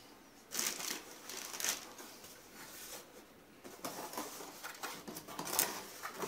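Plastic wrapping and a cardboard packing insert rustling and scraping as they are handled, in irregular bursts.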